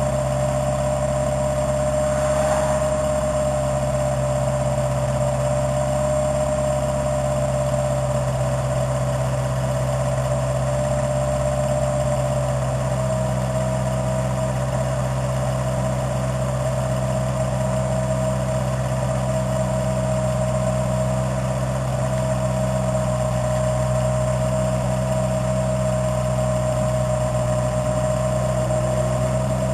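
Toyota AW11 MR2's four-cylinder engine idling steadily through a TRD header and R6 titanium muffler.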